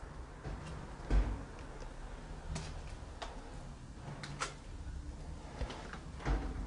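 Slow footsteps and handling noise in a quiet room: scattered soft knocks and clicks, with one dull thump about a second in.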